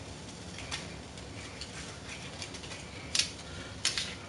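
Twist cap being unscrewed from a small bottle of sparkling wine: a few sharp, faint clicks, the clearest about three and four seconds in.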